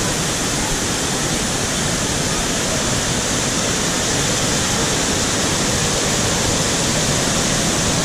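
Waterfall: white water cascading over rocks, a steady loud rushing close by.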